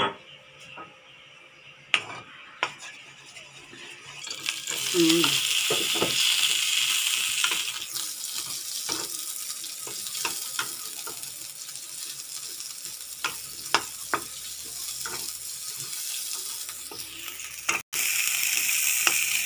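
Onion rings frying in hot oil in a metal wok. A sizzle starts about four and a half seconds in and keeps on, while a wooden spatula stirs them, knocking and scraping against the pan. A few sharp clicks come before the sizzle.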